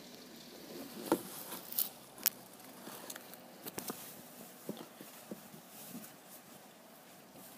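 Light rain falling steadily, with irregular sharp taps of drops landing close by, a few of them loud.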